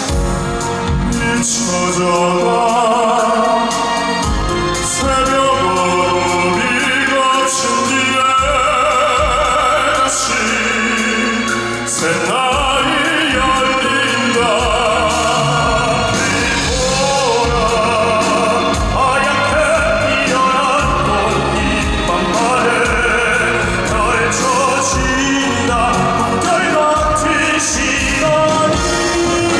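Male vocal group singing a classical crossover song in an operatic style, the voices carrying a wide vibrato over instrumental accompaniment.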